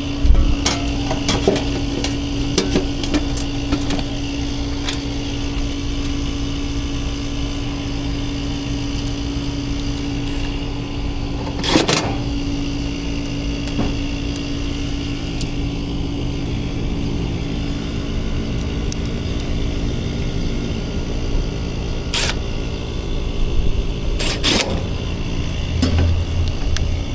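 A vehicle engine running with a steady hum and low rumble. There are clicks and knocks in the first few seconds, sharp knocks about 12 and 22 seconds in and twice near 24 seconds, and a deeper rumble near the end as the engine takes on more load.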